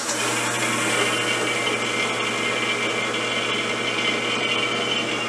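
Harbor Freight 13-inch, 16-speed benchtop drill press running free with no load: a steady motor hum and whir, with a light click at the very start.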